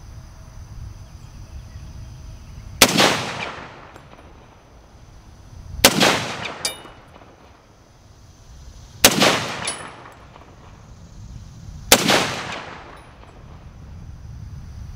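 M1 Garand rifle (.30-06) fired four times, slowly, about three seconds apart, each crack followed by a fading echo, with a fifth shot right at the end.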